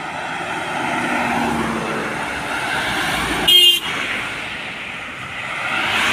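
Road traffic passing close: a cargo truck and cars go by with engine and tyre noise that swells and fades. A short vehicle horn toot sounds about three and a half seconds in and is the loudest sound.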